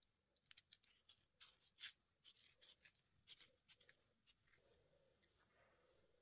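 Faint, crisp scraping and rustling strokes of kitchen handling, a quick irregular run over the first four seconds or so that then turns softer.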